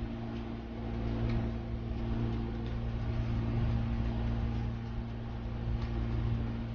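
Steady low mechanical hum, with a few faint clicks and chewing sounds of someone eating bread and raw vegetables.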